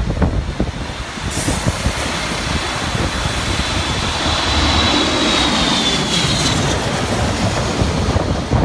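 Twin-engine jet airliner passing low overhead on final approach: the engine rush swells from about a second in, carrying a high fan whine that sinks slightly in pitch as the jet passes. Gusty wind buffets the microphone at the start.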